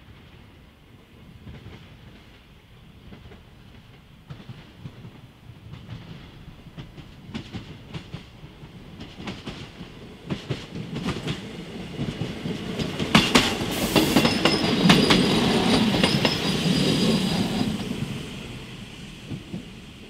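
Koleje Dolnośląskie SA135 diesel railcar approaching and passing close by, its wheels clacking over rail joints and switches. The sound grows louder, with a run of sharp clacks about 13 seconds in, is loudest for a few seconds with a low running rumble, then fades near the end.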